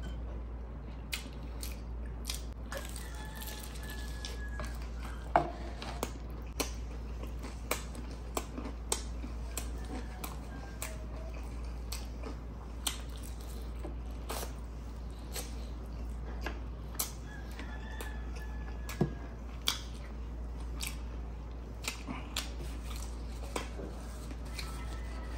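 Close-mic mukbang eating sounds: chewing and mouth clicks as fried chicken and rice are eaten by hand, with many short irregular clicks and smacks over a low steady hum.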